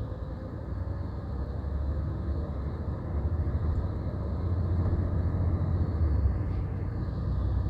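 Steady low rumble of a Greyhound coach running, engine and road noise heard from inside the passenger cabin.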